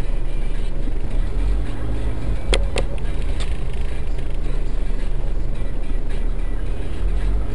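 Steady low rumble of a car's engine and road noise heard from inside the cabin in slow traffic, with two sharp clicks close together about two and a half seconds in.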